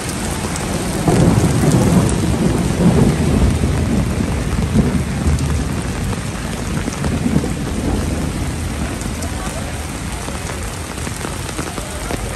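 Heavy rain falling on wet pavement, with a low rumble of thunder that swells about a second in and slowly fades over several seconds.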